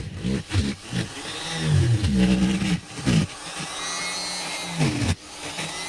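Handheld electric straight grinder with a rotary burr carving into olive wood, its motor pitch dropping each time the burr bites and rising again as it is eased off, several times over, with a steadier, quieter run in the middle.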